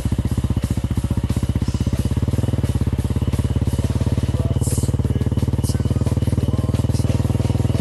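Motorcycle engine running at a steady speed, its exhaust beat coming in fast, even pulses. A couple of short high hisses come through about halfway in.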